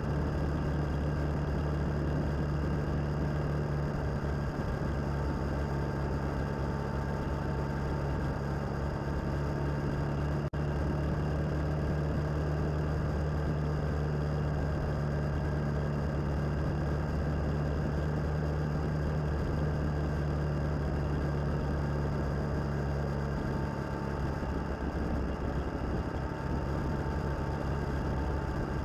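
Suzuki DL650 V-Strom's V-twin engine running steadily at cruising speed, with wind and road noise. About 24 seconds in, the steady engine note drops away as the throttle is eased off.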